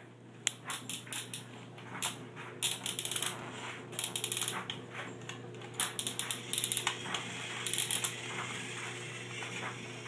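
Plastic clicking and rattling from a toy railway turntable turned by hand by its knob while a toy engine is set on it. The clicks come in several quick runs.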